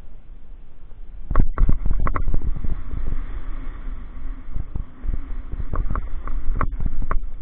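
Downhill mountain bike riding over a rocky dirt trail: a steady low rumble of tyres on dirt and gravel, with sharp knocks and rattles over bumps, in a cluster a little over a second in and again near the end.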